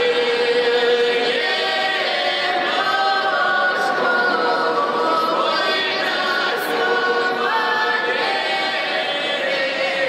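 Russian folk ensemble of women's voices with one man's, singing unaccompanied in several parts. Notes are held for a second or two, then step or slide together to new pitches.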